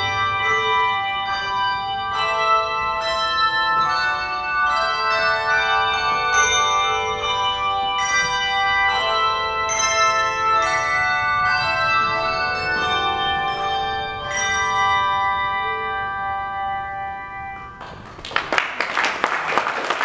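Handbell ensemble playing: a run of struck chords of bright ringing bells, the last chord left to ring and fade away. About two seconds before the end, audience applause breaks out.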